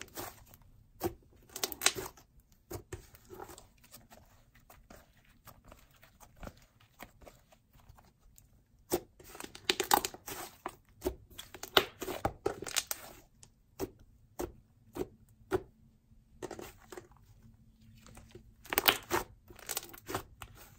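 Thick wood-glue clay slime being squeezed, folded and pressed by hand, giving irregular soft crackles and squelching pops. The crackling comes in bunches: about two seconds in, again from about nine to thirteen seconds, and near the end, with quieter stretches between.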